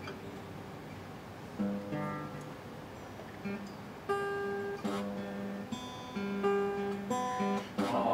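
Acoustic guitar strumming chords as the introduction to a hymn. The chords come in about a second and a half in and repeat steadily until the singing starts near the end.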